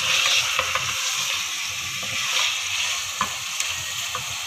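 Chicken pieces frying in oil and onion-tomato masala in a metal saucepan, sizzling steadily while being stirred with a wooden spoon, which scrapes and knocks against the pan now and then. This is the bhuna stage, searing the chicken in the masala.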